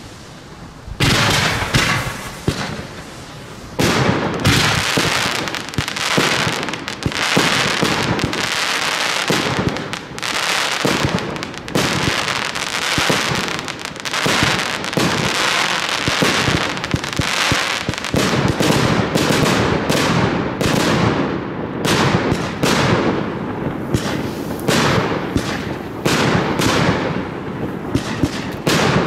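Fireworks display heard close to the firing site: a rapid, overlapping stream of launch thumps, bangs and crackle from shells and batteries. It starts about a second in, thins briefly around three seconds in, then runs almost without a break.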